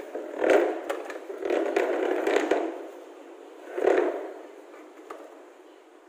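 Scraping and knocking of a plastic telephone handset being handled, in three irregular bursts with a few dull knocks, then quieter toward the end.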